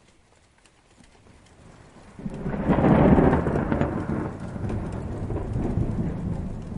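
Distant thunder over light rain: a deep rumble builds suddenly about two seconds in, peaks, rolls on with a second swell, then fades.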